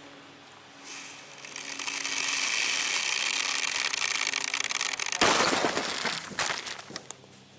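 A dry ice bomb, a sealed plastic bottle of dry ice, bursts inside a watermelon about five seconds in: a sudden loud blast that trails off over about two seconds. Before it, a steady hiss builds up over a few seconds.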